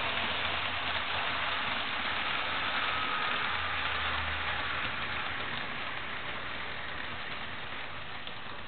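HO scale model diesel train hauling coal hoppers past on the layout: a steady rolling rush of metal wheels on track with a low motor hum, loudest about three to four seconds in, then slowly fading as it moves away.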